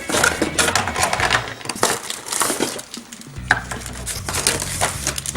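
Hard plastic toy pieces and packaging clattering and scraping as they are handled and unpacked, in irregular short clicks.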